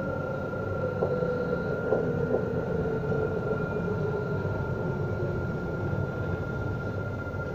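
Interior of an Alstom Citadis tram running on its rails: a steady low rumble with a steady high whine and a lower motor whine that slowly falls in pitch. A few light clicks come about one and two seconds in.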